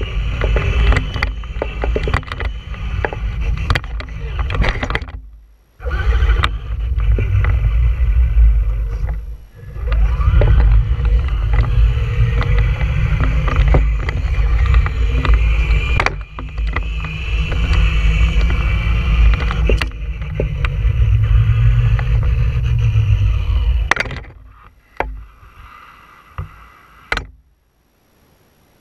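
Traxxas Stampede 2WD electric RC monster truck driving on asphalt, heard from a camera mounted on it: a motor whine rising and falling with the throttle over a heavy low rumble, with frequent clicks and knocks from the chassis. Near the end it slows and stops, with a couple of last knocks.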